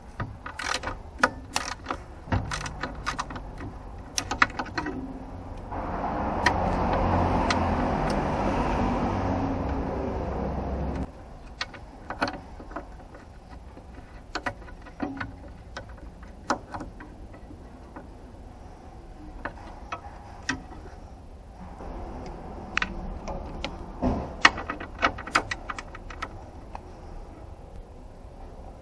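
Metal tools clinking and knocking on car parts, with a louder steady mechanical whirring for about five seconds that cuts off suddenly.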